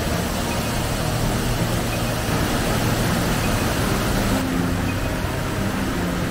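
Waterfall on Multnomah Creek, the rushing water making a loud, steady roar. Its high hiss thins somewhat about four seconds in.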